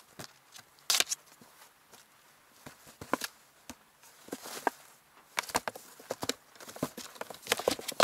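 A kitten scrambling and pouncing in a cardboard box: irregular taps, scratches and scrapes of its claws and paws on the cardboard and on the crinkly pet pad lining it. The scrabbling is sparse at first and grows busier in the second half.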